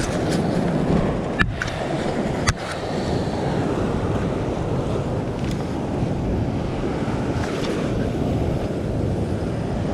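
Ocean swell surging and washing over a rock ledge, with wind buffeting the microphone. Two short sharp clicks come in the first few seconds.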